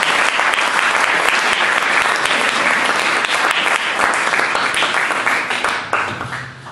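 Audience applauding: dense clapping that tails off in the last second.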